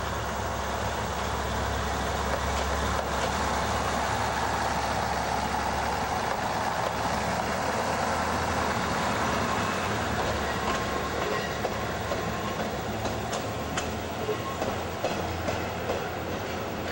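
Shimabara Railway KiHa 22 diesel railcar running past, its DMH17 diesel engine giving a low drone that fades after the first few seconds. Over the second half the wheels click sharply over rail joints and points.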